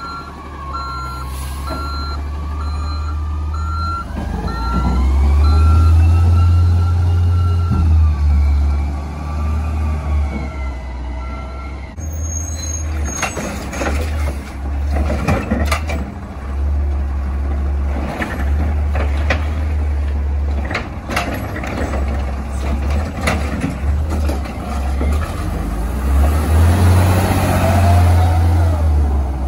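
A CNG McNeilus Autoreach side-loading garbage truck running, its reversing alarm beeping repeatedly over a whine that rises and falls. About twelve seconds in this gives way to a CNG Heil Rapid Rail side loader running, with a long string of sharp bangs and clatter.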